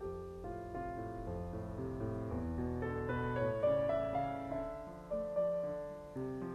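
Slow, soft piano music: single notes and chords struck about once a second and left to ring.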